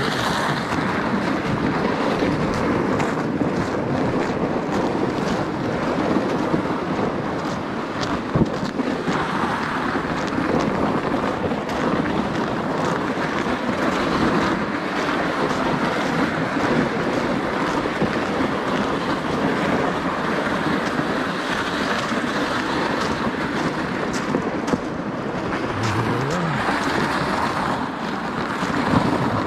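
Ice-fishing sled loaded with gear, dragged over packed snow and ice: a steady scraping rush with scattered small knocks.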